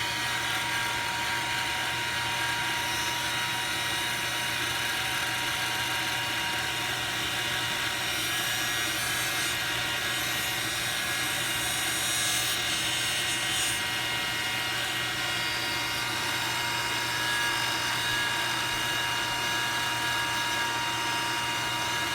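An old handheld hair dryer running steadily on heat, kind of noisy: a rush of air under a motor hum with several steady tones.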